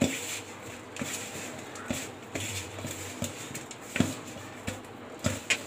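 A hand mixing and kneading crumbly flour dough with milk in a stainless-steel bowl: soft rubbing and scraping, with a few light knocks against the bowl.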